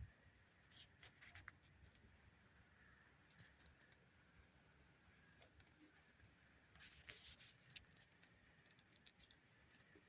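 Faint night ambience: a steady high-pitched insect trill, like crickets, with scattered faint crackles from a campfire. About four seconds in come four quick chirps.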